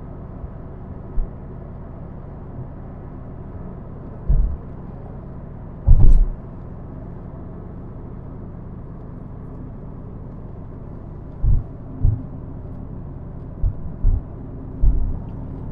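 Steady low rumble of a car driving, heard from inside the cabin, with several short low thumps, the loudest about six seconds in.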